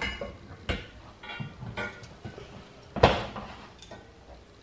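Steel rails and sliders of a Rev-A-Shelf pullout frame being handled and fitted together. Light metallic clanks and knocks, with two sharper ones, one under a second in and one about three seconds in.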